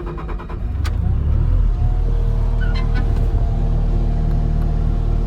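Bobcat S570 skid steer's Doosan diesel engine starting up, building over the first second or so, then settling into a steady run.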